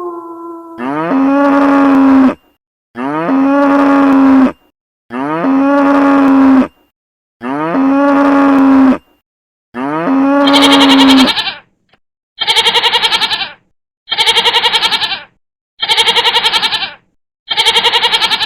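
A cow mooing five times, each a long low call that rises briefly and then holds steady, the same moo repeated about every two seconds. From about twelve seconds in it gives way to a shorter, wavering bleating call, repeated four times.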